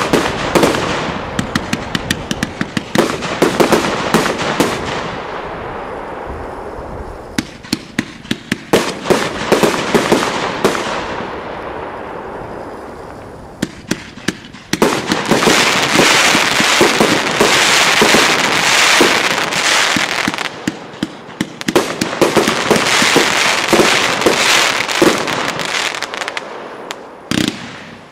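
Piromax PXC306 2-in-1 90-shot compound firework battery firing: a rapid run of sharp launch shots with dense crackling from the bursting stars, in waves. It dies down briefly about halfway, then comes back suddenly and loud with heavy crackling, and fades near the end.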